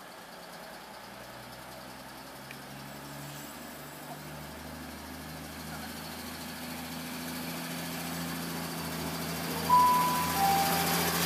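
CrossCountry Class 220 Voyager diesel-electric unit pulling away and accelerating past, its underfloor diesel engines rising in pitch and getting steadily louder. About ten seconds in comes a two-tone horn: a short high note, then a lower one.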